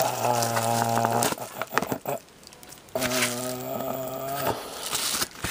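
A man humming two long, low, steady notes, about a second each, with short rustles and clicks of a paper mailer and plastic card holder being handled in between.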